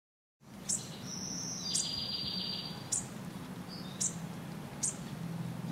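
Outdoor ambience: short high chirps repeating about once a second, with a held high buzz between about one and two and a half seconds in, over a low steady hum.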